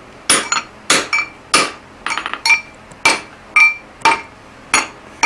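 Hand hammer striking a steel drift through the punched eye of a hot 4140 steel hammer head on the anvil, drifting the eye to clean it up rather than enlarge it. The blows come about two a second, each with a short metallic ring.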